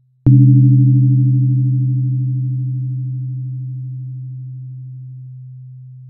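A deep 128 Hz therapy tone struck once about a quarter second in, then ringing on and fading slowly and evenly. Weaker higher overtones die away about five seconds in. Before the strike, the faint tail of the previous tone is still sounding.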